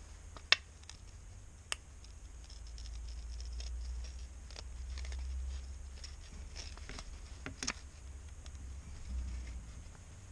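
Scattered small clicks and scrapes of a pry tool working under a phone's glued back glass at its edges, with a sharp click about half a second in.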